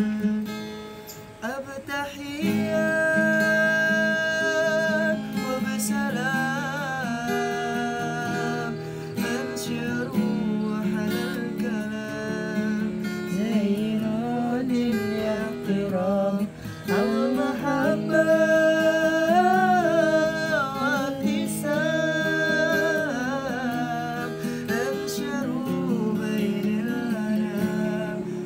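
Acoustic guitar strummed under a sung melody, with the guitarist singing along. The voice holds long notes that waver in pitch.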